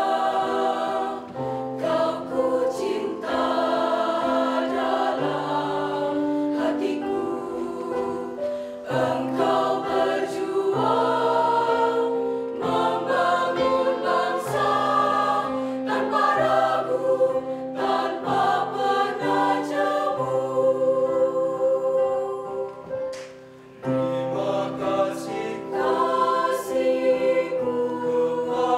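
Mixed choir of girls and boys singing in several parts, with low male voices underneath the higher voices. The singing drops away briefly about three-quarters of the way through, then comes back in.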